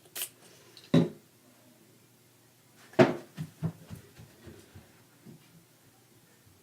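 Knocks and clatters of hard objects being handled: a sharp knock about a second in, then a louder one about three seconds in followed by a quick string of lighter taps.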